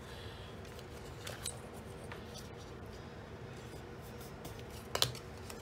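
Brown cardstock being folded along its score lines and pressed flat with a small hand-held tool: faint paper scratching and rustling, with a few light ticks and one sharp click about five seconds in.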